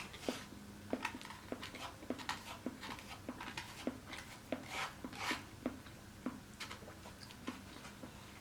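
Close-up chewing and mouth sounds: short wet clicks and smacks about twice a second as food is chewed.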